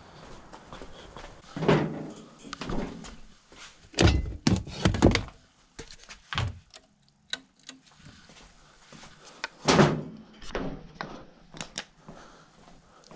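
Dull thunks and knocks of gear being picked up and handled, in several bunches. The loudest come about two seconds in, in a quick cluster around four to five seconds, and again near ten seconds.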